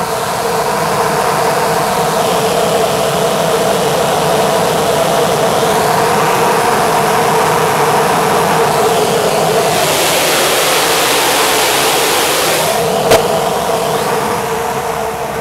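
Airliner engines at takeoff power heard from inside the cabin over the wing during the takeoff run and climb-out: a steady drone with several held tones. A rushing hiss swells for a few seconds past the middle, and a single sharp click comes near the end.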